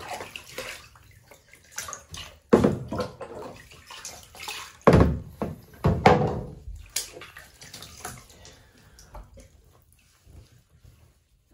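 Bath water splashing and sloshing in irregular bursts. The loudest splashes come about two and a half, five and six seconds in, then it dies down to faint sounds over the last few seconds.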